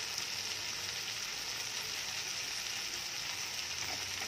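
Taro root pieces with onion and tomato sizzling steadily in oil in a frying pan.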